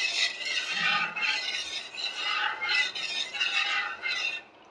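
Metal ladle scraping and clinking against a steel pan in repeated strokes as thick kadhi is stirred nonstop, which keeps it from splitting before it boils. The scraping stops shortly before the end.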